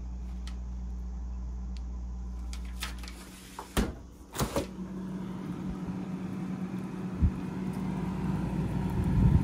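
Refrigerator door shutting and the freezer door above it being pulled open: two knocks in quick succession about four seconds in, over a steady low hum.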